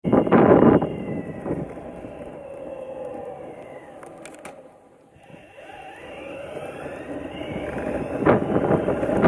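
Boosted electric skateboard rolling fast on an asphalt road: wheel roar and wind on the microphone, with a whine that slides down and then back up in pitch. The sound is loud at first, fades to its quietest about halfway through, then builds again toward the end.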